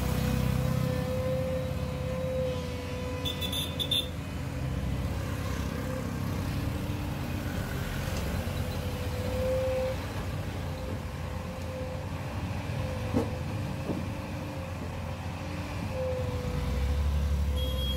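Volvo crawler excavator's diesel engine running steadily under working load, with a steady whine above it, as the bucket digs through gravel and lifts. A single short knock about thirteen seconds in.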